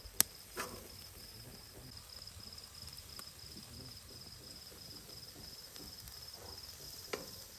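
Crickets chirping: a faint, high, evenly pulsing chirp several times a second, steady throughout. A few sharp clicks stand out, the loudest just after the start and another near the end.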